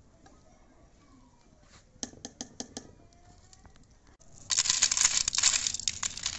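Crisp, freshly fried besan bhujia (sev) crumbled by hand and dropped onto a plate: a loud, dry crackling rattle that starts about four and a half seconds in, after a few light clicks near two seconds. The crackle is the sign of sev fried crisp.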